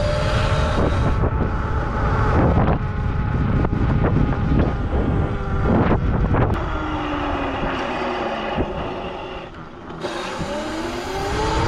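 Electro&Co 'One' electric motor on a modded Razor MX650 dirt bike whining as it rides, run at only about 3 kilowatts. The whine falls in pitch as the bike slows about seven seconds in and rises again as it speeds up near the end. Heavy wind noise on the microphone runs under it.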